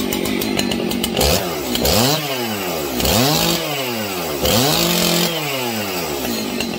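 Husqvarna 272XP two-stroke chainsaw idling, then blipped up to high revs about four times in quick succession, falling back to idle after each, and settling to idle near the end.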